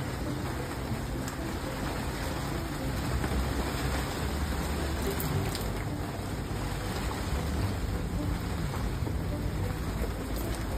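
Rain falling steadily on a sailboat's clear vinyl cockpit enclosure and deck, over a constant low rumble.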